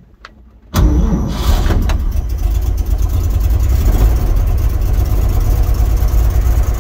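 1946 Chevy pickup's 216 inline-six cold-starting on the foot starter: it fires and catches within about a second, then runs steadily on part choke with a little throttle.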